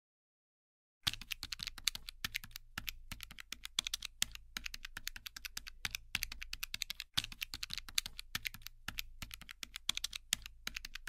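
Quick light taps of fingers and fingernails on a smartphone's glass touchscreen, several a second, keying numbers into a calculator app. The taps start about a second in and break off briefly partway through, over a low steady hum.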